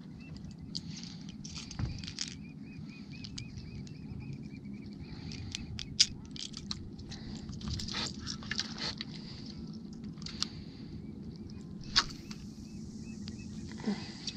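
Spinning reel being cranked as a topwater plug is worked back across the water, with light mechanical clicking and rattling. Two sharp clicks about six seconds apart stand out over a steady low rumble.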